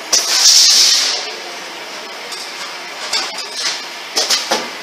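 Automatic MCB rivet insertion machine running: a loud hiss of compressed air lasting about a second near the start, then a quick series of sharp metallic clicks and clinks from its pneumatic tooling near the end.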